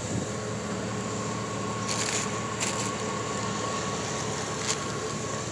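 Steady mechanical hum with a faint high whine, with a few brief rustles of plastic packaging, two of them close together about two seconds in and one more near the end.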